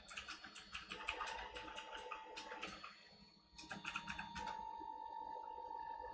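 Open-frame 3D printer running a print: its stepper motors hum steadily under a fast run of ticks, about six a second, as the print head moves back and forth. The ticking stops about three seconds in, then comes back for a short run before the hum goes on alone.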